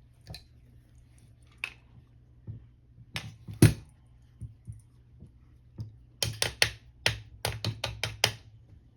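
Light hammer taps on a punch, driving a pin into a polymer AR-9 lower receiver: a few scattered sharp taps, the loudest about three and a half seconds in, then a quick run of about eight taps near the end.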